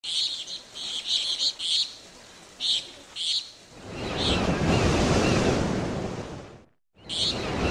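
Short bursts of high chirping repeating every second or so, with a loud rushing swell like a wave washing in from about four seconds in that fades and cuts off suddenly, then starts again near the end.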